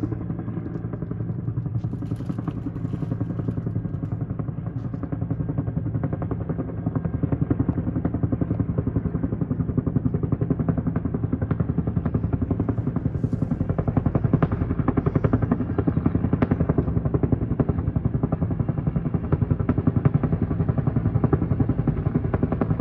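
Firefighting helicopter flying overhead with its rotor beating steadily, getting louder about seven seconds in as it comes nearer.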